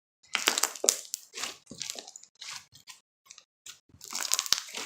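Slime being squeezed and pressed by hand: a run of short, irregular noises, with a brief pause about three seconds in.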